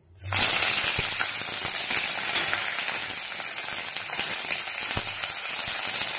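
Green chillies and curry leaves hitting hot oil in a kadai, sizzling loudly with fine crackling that starts suddenly a moment in and keeps up steadily while a spoon stirs them.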